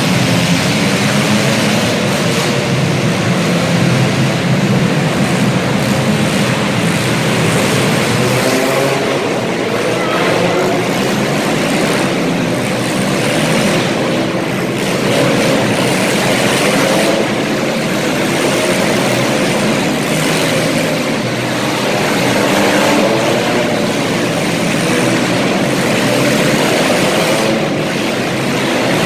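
Several demolition derby cars' engines running and revving at once, loud and continuous, their pitch rising and falling as the cars push and ram.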